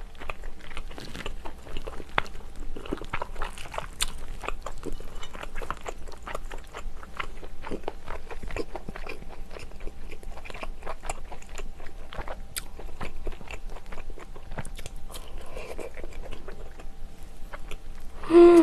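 Close-miked chewing and wet mouth clicks of a person eating seafood from a spicy monkfish stew, fish roe among it: many small irregular ticks and smacks.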